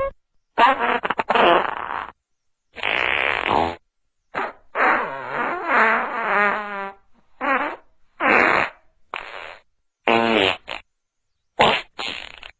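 A string of separate fart sound effects played one after another, with dead silence between them: about ten in all, some short, some longer with a wavering, buzzing pitch, the longest about two seconds near the middle.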